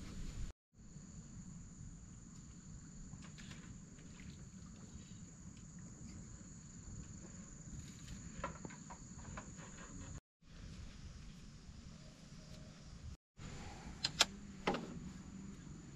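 Lakeside outdoor ambience: a steady high-pitched insect drone over a low rumble, with a few light clicks near the end as a fishing rod and bait are handled.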